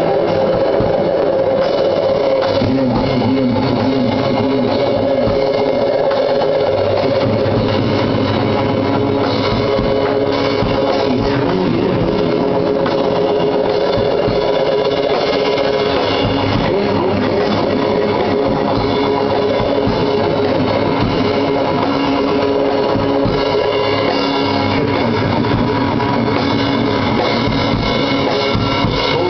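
Live psychedelic rock band playing steadily and loudly: a drum kit and cymbals driving under held, droning notes from an electric sitar.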